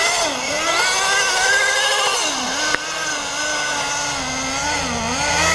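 Small nitro glow engine of an HPI Nitro Star–powered RC snowmobile, revving up and down in quick swells as the sled spins circles in snow. A sharp click comes about halfway through, after which it runs a little quieter.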